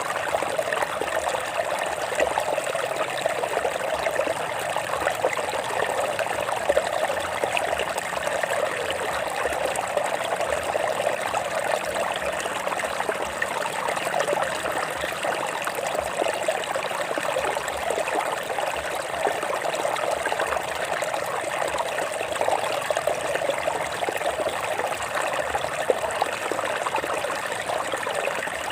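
Stream water running and trickling over rocks, a steady rush with fine splashing detail and no pauses.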